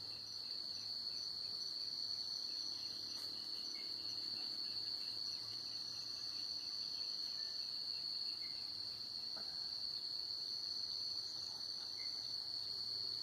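Crickets singing at night: a steady, unbroken high-pitched trill, with a second, fainter insect call coming and going above it.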